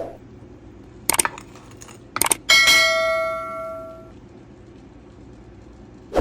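Metal kitchenware clanging: a couple of quick knocks, then one strike that rings out like a bell and fades over about a second and a half.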